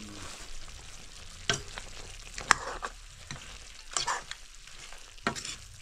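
Chicken curry sizzling in a wok while a metal ladle stirs it, the ladle knocking and scraping against the pan a few times.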